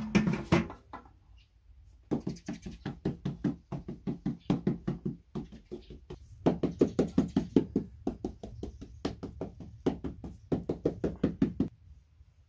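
Hand kneading flatbread dough in a large metal basin: quick runs of knocks, about five a second, as the fist presses the dough against the pan, in several bursts with short pauses between. A brief louder clatter at the very start.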